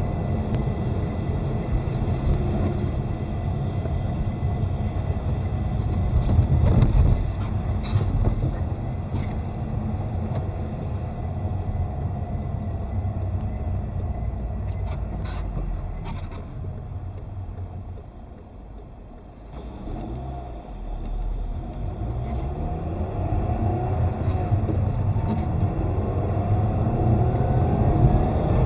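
Car engine and road noise from inside the cabin while driving, with a faint steady high whistle of unchanging pitch in the first half. Past the middle the car slows almost to a stop, then pulls away again with the engine pitch rising.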